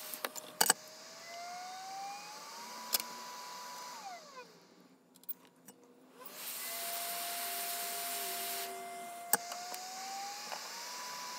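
Hot-air rework station blowing, a steady hiss of air with a fan whine that climbs in pitch, holds, then drops as the air cuts out for about two seconds near the middle. It starts up again and climbs once more near the end. A few sharp clicks, the loudest near the start and about nine seconds in.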